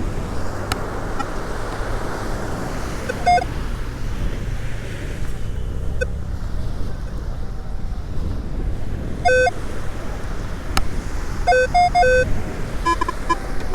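Metal detector sounding short beep tones as it passes over buried metal targets in the sand: a single beep about three seconds in, another around nine seconds, then a quick run of beeps near the end. Steady surf and wind noise on the microphone underneath.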